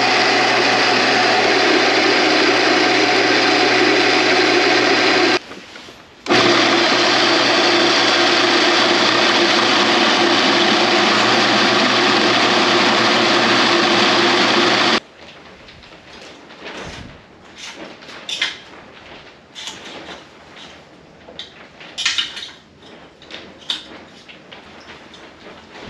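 Drill press running and drilling a hole through a steel flat bar: a loud, steady motor drone with the cutting of the bit, broken by a short gap about five seconds in. About fifteen seconds in it gives way to quieter scattered clicks and knocks of metal parts being handled.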